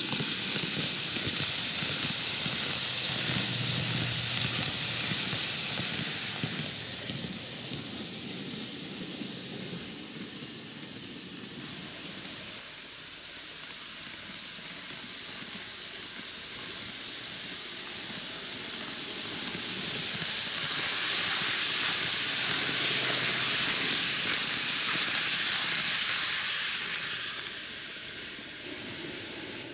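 Ten-car N-gauge model train, a Micro Ace Keio 9000 series, running on TOMIX canted track: a steady hissing rattle of wheels on the rails. It is loud for the first six seconds or so, quieter for a stretch, and loud again from about 20 s to 27 s as the train comes back past.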